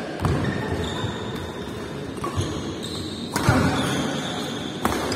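Badminton rally: rackets striking the shuttlecock four times, sharp cracks with a short echo off the hall. The loudest hit comes about three and a half seconds in.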